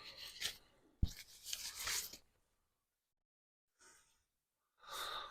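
Quiet handling noises: a single sharp click about a second in, followed by about a second of faint rustling or rubbing, then near silence and a little more rustling near the end.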